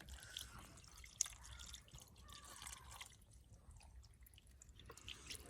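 Near silence, with a few faint small clicks, the clearest about a second in.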